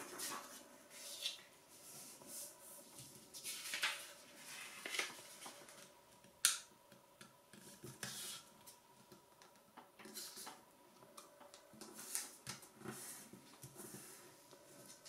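A sheet of standard 15 cm origami paper being folded and creased by hand: irregular rustling and crinkling as the paper is bent over, with fingers swishing along the fold, and one sharp click about six and a half seconds in.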